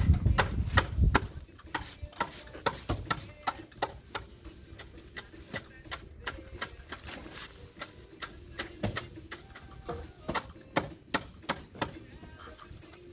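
A series of sharp, irregular taps and knocks, about one or two a second, with a low rumble in the first second.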